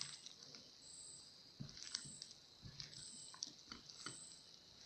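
Faint wet squishing and soft clicks of raw chicken pieces being mixed by hand in a thick cornflour and egg coating, in short scattered bits.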